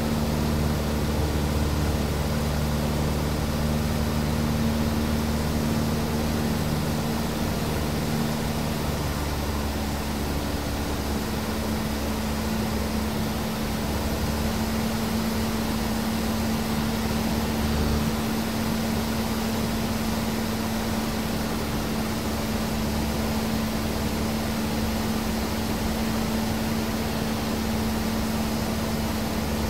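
Cessna 150's four-cylinder piston engine and propeller running steadily in level flight, heard from inside the cabin with a constant rush of air noise. The engine note shifts slightly about ten seconds in and again around eighteen seconds.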